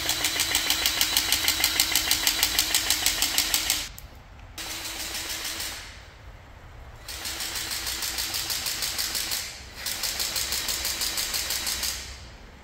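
Cordless battery grease gun running in several trigger bursts of one to four seconds, its motor buzzing with a rapid, even pumping pulse as grease is forced into the excavator's boom pin fittings.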